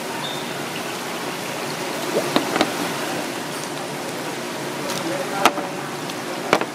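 Steady rush of running water from live-seafood tanks, with a few sharp clicks of abalone shells knocking together as they are handled, the loudest about five and a half seconds in.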